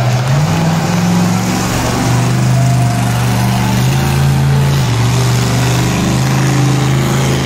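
Monster truck engine running, its pitch stepping up about half a second in and then holding, with slight dips and rises as the throttle shifts.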